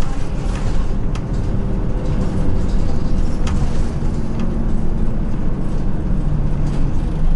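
Inside a city bus: a steady low rumble from the engine and road, with an engine hum that shifts in pitch and a few sharp clicks and rattles.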